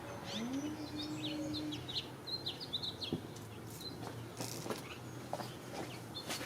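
Small birds chirping in quick, short notes, with a few faint sharp clicks and, early on, a brief low hum.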